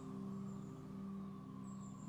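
A harp's last chord left to ring, its low strings sustaining and slowly fading, then stopping abruptly at the very end.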